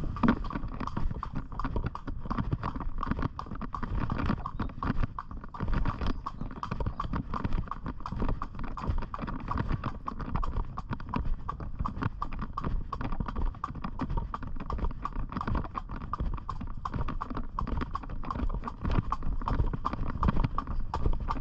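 A ridden pony's hooves clip-clopping in a steady, even run of hoofbeats.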